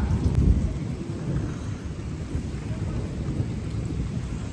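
Thunder rumbling during heavy rain, loudest about half a second in and then going on as a low, rolling rumble over the steady hiss of the rain.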